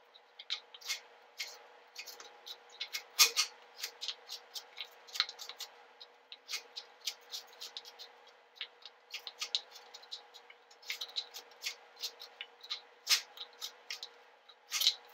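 A chef's knife cutting carrots into matchsticks on a plastic cutting board: a run of irregular sharp taps as the blade goes through the carrot and strikes the board.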